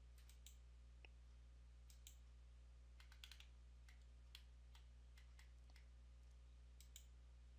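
Faint, scattered computer mouse clicks over near-silent room tone with a steady low hum, including a quick run of clicks about three seconds in.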